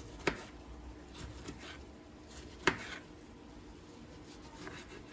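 Kitchen knife slicing through a tomato on a plastic cutting board, the blade striking the board with two sharp clicks about two and a half seconds apart and a few fainter taps between.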